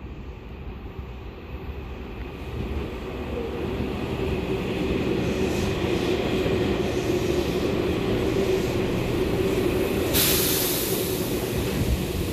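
Tobu Skytree Line electric train passing through a station without stopping, at low speed. It grows louder over the first few seconds and then runs on with a steady hum. About ten seconds in, a sudden hiss joins.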